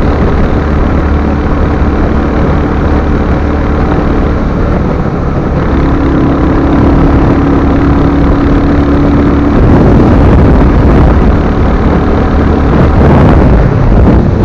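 Royal Enfield Hunter 350's single-cylinder engine running under way, with road and wind noise. A steady tone holds from about six seconds in, and the sound grows louder and rougher a few seconds later.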